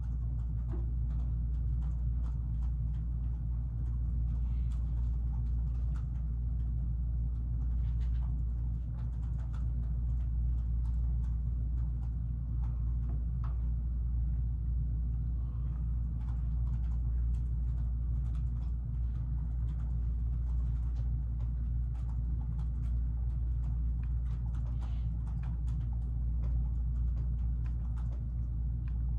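Steady low background hum, unchanging throughout, with faint scattered small clicks over it.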